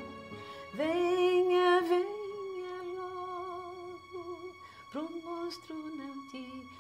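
A voice humming a slow melody in long held notes with vibrato, starting about a second in, over soft background music.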